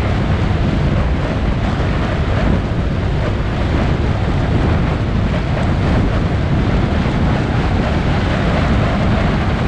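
Steady wind rush buffeting the microphone of a moving rider, over a vehicle's running and road noise, without a break.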